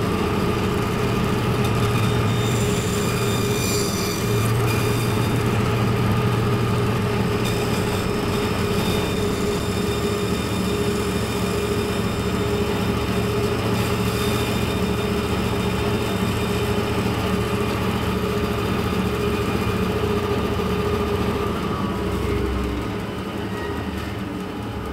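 Vertical bandsaw running steadily, its blade cutting into plywood as an interior notch is worked out with a series of short cuts. A few seconds before the end the sound drops a little as the cutting stops and the saw runs on.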